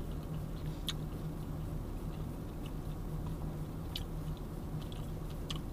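A person chewing a mouthful of chicken burger, with a few faint mouth clicks. Under it runs a steady low hum from the car's running engine and air conditioner, heard inside the cabin.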